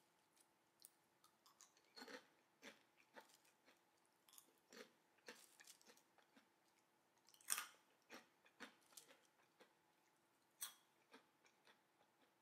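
Fingers picking through a bowl of crisp caramel-coated popcorn: irregular dry crackles and crunchy rustles, the loudest about halfway through, over a faint steady hum.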